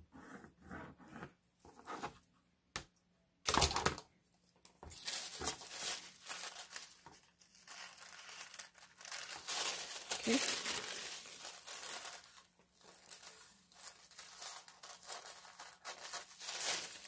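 Thin tissue pattern paper crinkling and rustling as it is handled and cut with scissors, in uneven crackling bursts that grow dense after a loud rustle about four seconds in.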